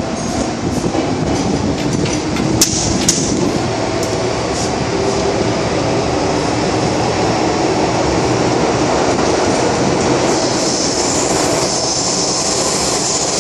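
MTR Island Line M-Train running at speed through a tunnel, heard from inside the car: a loud, steady rumble of wheels and running gear. There are a few sharp clicks about two and a half and three seconds in, and a high hiss rises from about ten seconds in.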